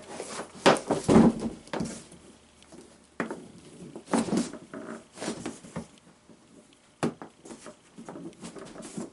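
Irregular handling noises of knocks, scrapes and rustles, loudest about a second in.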